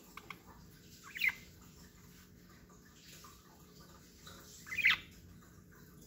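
Pet budgerigars giving two short chirps about three and a half seconds apart, with a couple of faint clicks just before the first.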